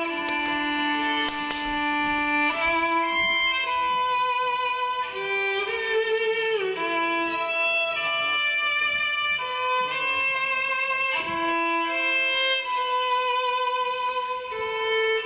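Violin playing a slow melody of long held notes, sometimes two notes at once, with a short slide between notes about six and a half seconds in.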